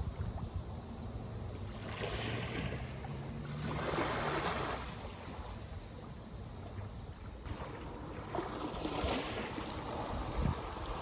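Small sea waves breaking and washing up the shore at the water's edge. The wash swells and fades, strongest about four seconds in, with smaller surges before it and again near the end.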